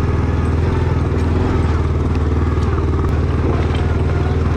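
ATV engine running at a steady throttle while riding, its pitch holding even, with light rattling from the machine over rough ground.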